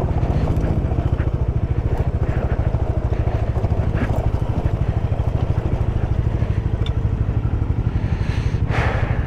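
Bajaj Dominar 400's single-cylinder engine running at low revs with a steady, fast pulse as the motorcycle crawls over a stony track, with a few sharp clacks of stones or chassis and a brief rush of noise near the end.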